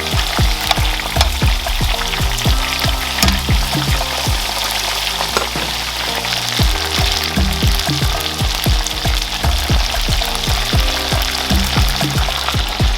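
Chicken pieces frying in hot olive oil in a pot, with a steady, dense sizzle and crackle. Background Afrobeat music with a steady bass beat plays underneath.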